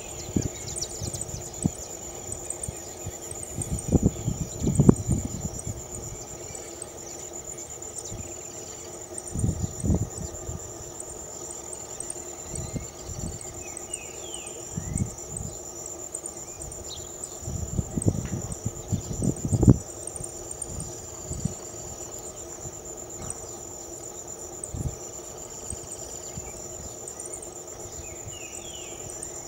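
Insects chirring in a steady high-pitched drone. Several low rumbles rise through it, loudest around four to five seconds in and again around eighteen to twenty seconds.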